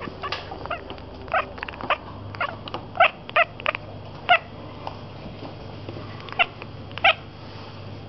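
Domestic cat chattering at birds seen through a window: a string of short, clipped chirps, some in quick runs and some alone, with pauses between.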